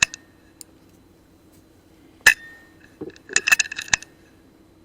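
A single sharp shot from a .177 FX Dreamline Lite PCP air rifle about two seconds in, followed about a second later by a quick run of metallic clicks and clinks as the rifle's action is cycled for the next pellet.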